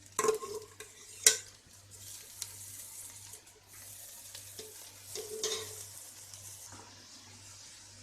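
Washed, drained rice sizzling as it fries in hot ghee and oil in a pot, with a few sharp clinks and scrapes of a ladle against the pot in the first second or so, then a steady sizzle.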